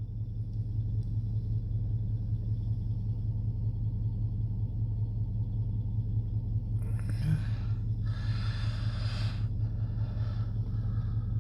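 Steady low rumble, with a few seconds of rustling, handling-type noise in the second half.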